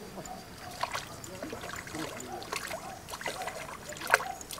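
Water splashing and trickling in short sharp bursts as a hooked crucian carp struggles at the surface, with the strongest splash about four seconds in.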